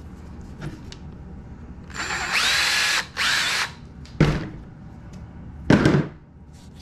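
Cordless drill spinning up with a rising whine that then holds for about a second, followed by a second shorter burst, while boring out a small plastic nose-gear part of a foam RC plane. A short knock follows, and then a louder knock near the end.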